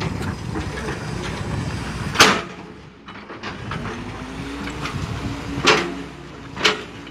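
Hitachi EX200 hydraulic excavator running with a steady low rumble as it swings its boom. It is broken by three short, sharp, loud bursts of noise, the first about two seconds in and two close together near the end.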